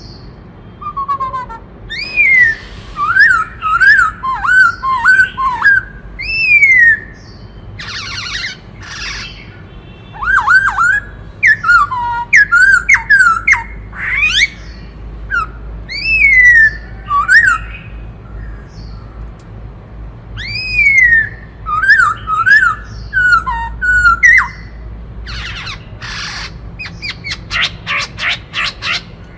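Black-throated laughingthrush singing loudly in phrases of clear whistles: long falling slurs and quick runs of up-and-down notes, broken by harsh rasping notes. A rapid string of rasping notes comes near the end.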